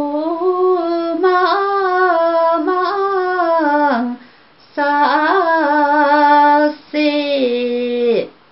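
A woman singing a Hakpare samlo, the traditional Limbu sung verse, solo and unaccompanied. She sings in long held phrases that slide and drop in pitch at their ends, breaking briefly for breath about four seconds in and again near the end.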